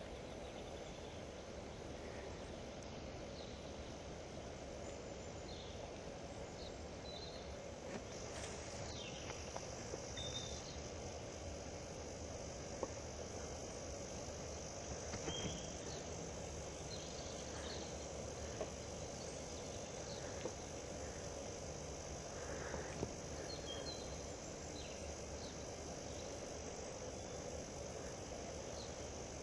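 Woodland ambience: a steady, high-pitched chirring of insects such as crickets, with scattered short bird chirps and a few faint snaps.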